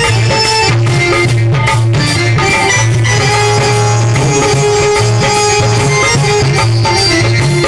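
Loud music with held tones over drumming, the accompaniment of a nachari, a Maithili devotional song to Shiva.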